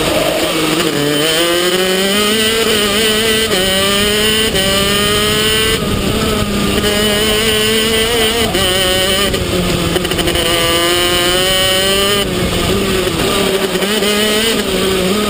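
Vortex two-stroke kart engine heard from on board, at full throttle with revs climbing steadily and then dropping back sharply for the corners, several times over.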